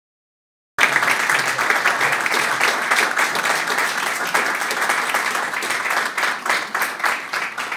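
Audience applauding: dense clapping that starts abruptly about a second in and tapers off near the end.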